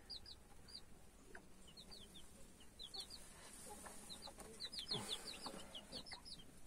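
Week-old chicks peeping around their mother hen: a faint, scattered run of short, high, falling peeps, several in quick succession. A few light knocks and rustling come about five seconds in.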